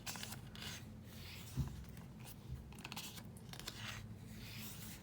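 Paper rustling and sliding as the pages and photos of a K-pop album are handled, in short scraping swishes, with one light knock about one and a half seconds in.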